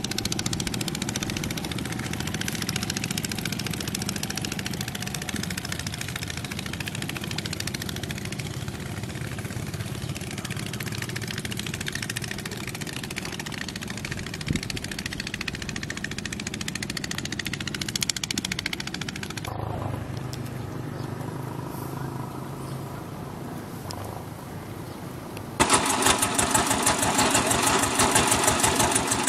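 A steady, even noise, quieter for a few seconds from about 20 s in. Then, about 26 s in, a small outrigger-boat engine cuts in loud, running with a fast, even beat.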